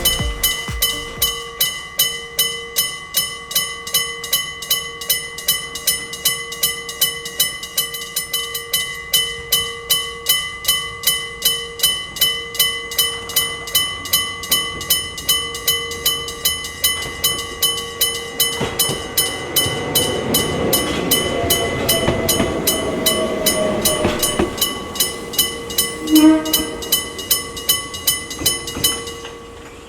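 Railway level-crossing electric gong bells ringing, about two and a half strikes a second. A train passes through partway in, with a slowly falling whine. A short horn blast sounds shortly after, and the bells stop near the end.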